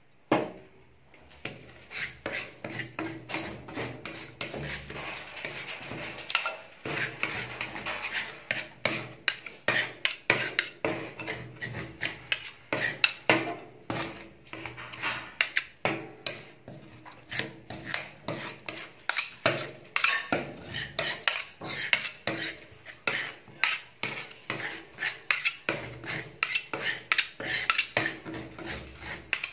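Two metal spatulas chopping and scraping on the steel cold plate of a rolled-ice-cream pan, in rapid, uneven taps with scraping between them. They are mixing mint and dates into the cream base as it freezes.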